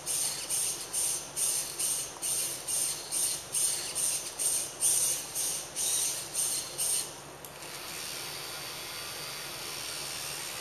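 Small robot's drive motors whirring in short high-pitched pulses, about three a second, as it edges forward. The pulses stop about seven seconds in and a steady hiss follows as its small fan spins up to blow out a candle flame.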